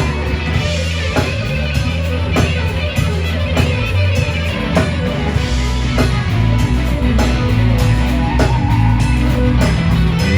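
Live band playing blues-rock: electric guitar over bass and a drum kit keeping a steady beat.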